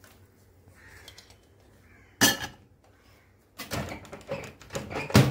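An aluminium cake pan is set onto the glass turntable of a convection microwave oven with a sharp clatter, and the oven door is shut. A run of clunks and knocks follows, the loudest near the end.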